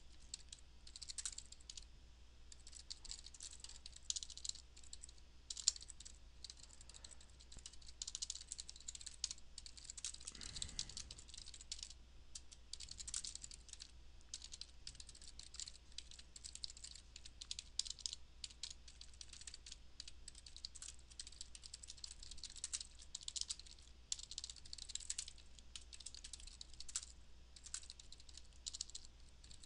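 Fast typing on a computer keyboard: a steady run of quiet key clicks with brief pauses, over a faint low hum.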